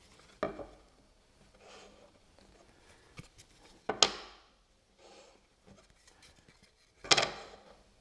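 Short maple-and-walnut wooden strips clacking against each other and the wooden workbench as they are lifted, turned end for end and set back in line, with faint rubbing as they slide into place. Three sharp clacks stand out, about half a second, four and seven seconds in, the middle one loudest.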